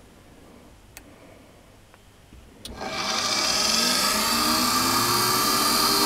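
A few faint clicks, then about two and a half seconds in the rewound armature of an IE1022 electric drill motor starts up in a test rig. It spins up with a rising whine, then runs steadily with a whine and a hiss from the brushes.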